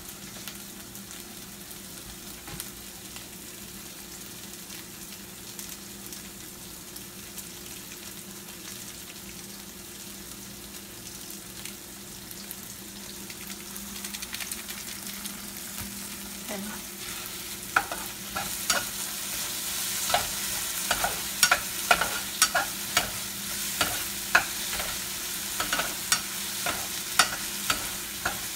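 Tomatoes, green peppers and onion sizzling in oil in a nonstick frying pan. About two-thirds of the way in, a spatula starts stirring them, scraping against the pan roughly twice a second, and the sizzle grows louder.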